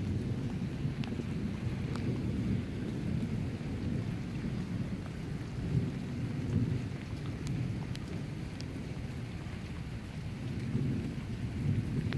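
Distant thunder rumbling low and continuously from a lightning storm, swelling slightly about halfway through and again near the end.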